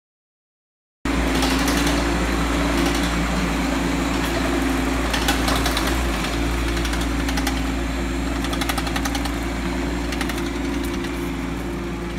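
After about a second of silence, a Bobcat E10 mini excavator's diesel engine starts running steadily, with faint ticks on top.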